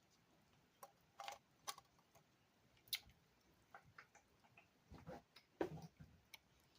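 Faint, irregular clicks and taps of hard plastic parts of a transformable action figure and its add-on kit being handled and fitted, about a dozen over several seconds.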